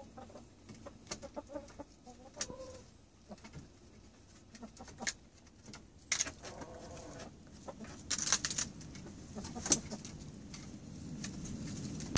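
Chickens clucking quietly, with a longer drawn-out call about six and a half seconds in, among sharp taps and rustling as they peck at a hanging crust of bread and scratch in the leaf litter.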